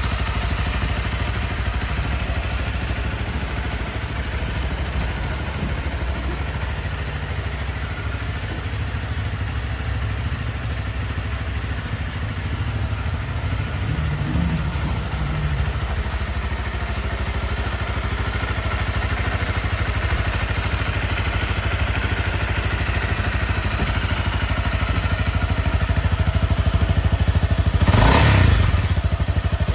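Honda CRF250L's 249 cc single-cylinder four-stroke engine idling steadily. Near the end the throttle is blipped once, a short rev that rises and falls back to idle.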